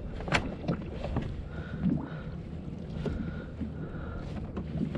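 A few sharp knocks and scrapes on a plastic pedal kayak's deck as a loose fish is fished out from under the seat, over a steady low rumble of wind and water on the microphone. The sharpest knock comes about a third of a second in.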